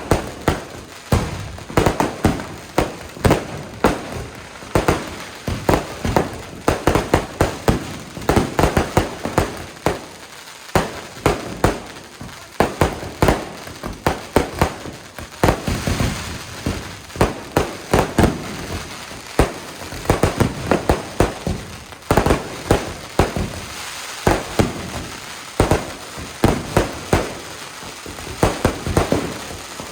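Fireworks going off: a dense, irregular barrage of sharp bangs and cracks, several a second, with crackling between them.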